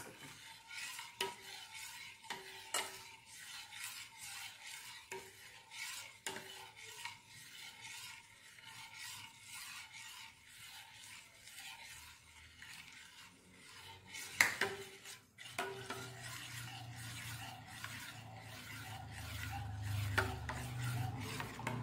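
Steel ladle stirring hot milk in a stainless steel pot, scraping and now and then clicking against the metal, as lemon juice curdles the milk into chhena.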